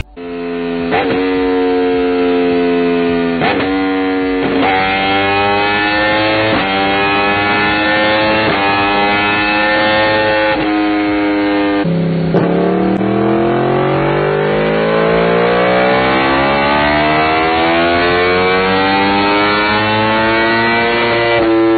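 2015 Yamaha YZF-R1's crossplane inline-four through an Arrow exhaust, run hard on a dyno: the engine note climbs in pitch in several short runs, each broken off sharply, then drops about halfway and climbs in one long, steady pull for about ten seconds.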